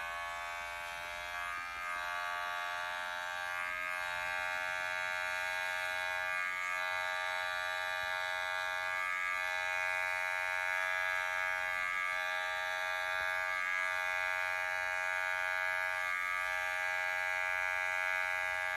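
Electric pet hair clippers running with a steady buzz while trimming the fur on a cat's paw.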